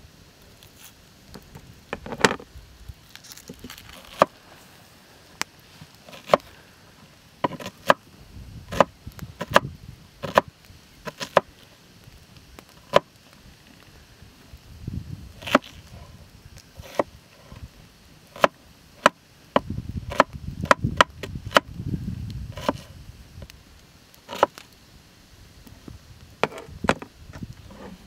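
Kitchen knife chopping an onion on a wooden cutting board: irregular sharp knocks of the blade on the board, some single and some in quick runs.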